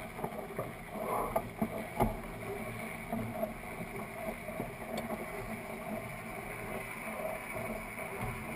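Dufour 45e sailing yacht under sail: a steady rush of water along the hull and wind over the deck, with a couple of sharp clicks from deck gear.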